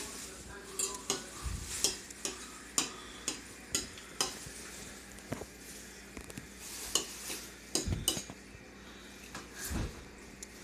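Metal fork clinking and scraping against a bowl in irregular quick taps as spaghetti is twirled and eaten, with a few dull thumps.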